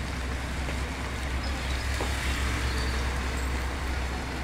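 Street traffic on a wet road: motorcycles and motor tricycles running past with a steady low rumble, over an even hiss of tyres on the rain-soaked pavement.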